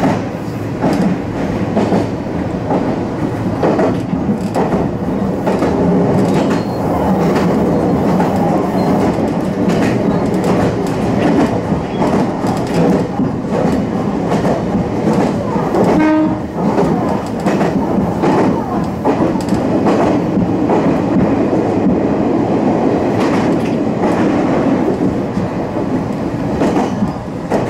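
Meitetsu electric commuter train running along the track, heard from the driver's cab: a steady rumble of wheels and motors with the clickety-clack of the wheels passing over rail joints.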